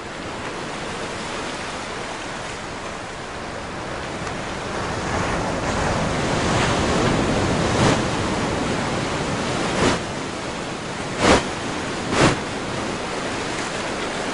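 Steady outdoor rushing noise that swells toward the middle, with four sharp knocks in the second half.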